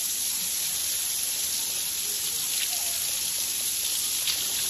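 Steady hiss of running water, even and unbroken.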